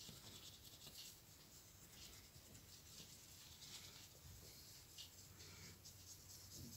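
Faint rustling of fingers rubbing a Yorkshire terrier's ears and fur, in repeated soft strokes.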